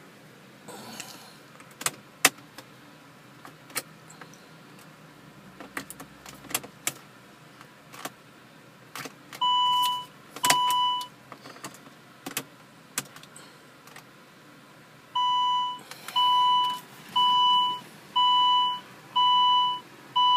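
A car that will not start after a failed ECU software update: scattered sharp clicks with no engine cranking or running, then short electronic beeps of about half a second each, two near the middle and then six at about one a second near the end.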